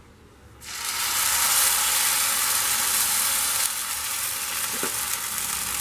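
Idli batter sizzling as it is ladled onto a hot cast-iron dosa tawa. The hiss starts suddenly about half a second in and holds steady, easing slightly after the middle.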